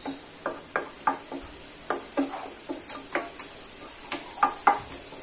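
Wooden spatula stirring crushed ginger and garlic in a nonstick frying pan: irregular scrapes and knocks against the pan, about three a second, the loudest near the end. Underneath is a faint sizzle of the garlic frying in hot oil.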